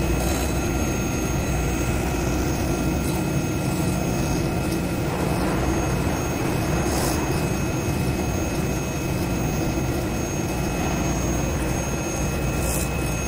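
CNC foam cutting machine running as its knife head cuts a thick foam sheet: a steady machine drone with a low hum and a few thin, steady high whines.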